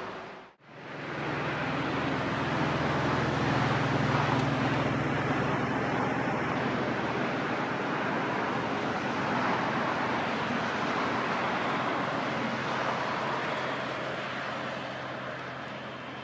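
Steady outdoor engine rumble with a constant low hum, loudest in the first half, broken by a brief drop to near silence about half a second in.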